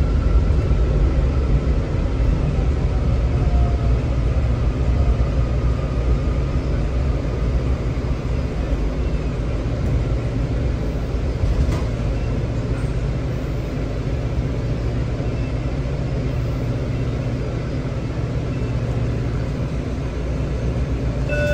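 Inside a WMATA 7000-series Metro railcar at a station: a steady low rumble from the car's running equipment and ventilation. A faint high electric whine from the train's propulsion fades away in the first few seconds.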